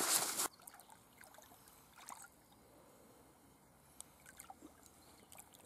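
A loud rush of noise that cuts off about half a second in. Then faint trickling and dripping of water, with small scattered drips and splashes, as a carp retaining sling is held in shallow lake water.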